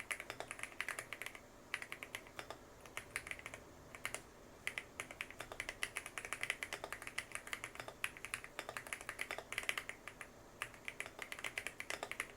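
Fast typing on a custom 65% mechanical keyboard with PBT Cherry-profile keycaps and a two-layer tape mod, giving rapid clacky keystrokes in bursts with brief pauses between them.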